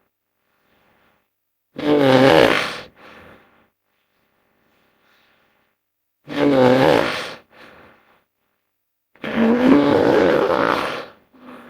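Three loud, rough animal roars, each about a second long, with a short quieter grunt after each. These are large-animal roar sound effects of the kind used for a hippo-bear hybrid creature.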